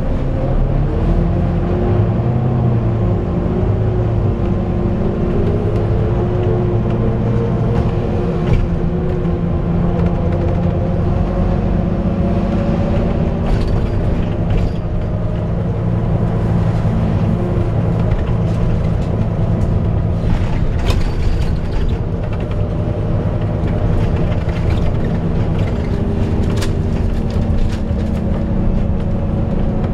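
Volvo B9TL double-decker bus heard from the upper deck while driving: its engine running with the cooling fan's steady, hoover-like whine, the pitch drifting slowly up and down. A few faint clicks sound over it.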